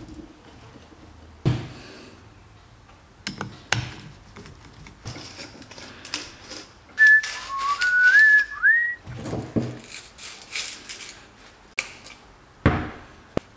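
Knocks, clicks and scraping from taking apart a 1960s Vespa GS rear shock absorber by hand, with its rubber boot and coil spring being worked off the damper. About seven seconds in comes the loudest sound: a brief high whistling squeal of a few stepped, rising notes.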